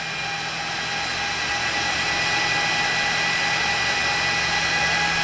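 Cooling fans of a bench power supply and electronic load running: a steady rushing hiss with a faint whine, growing a little louder over the first couple of seconds as the load current is turned up.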